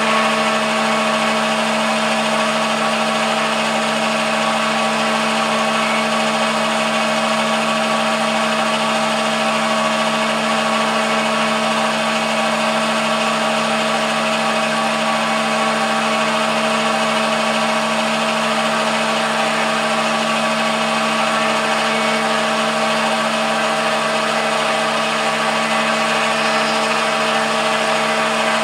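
MDF rose engine lathe running a computer-controlled cut with its cutter engaged: a steady motor hum and whine with several held tones over a hiss.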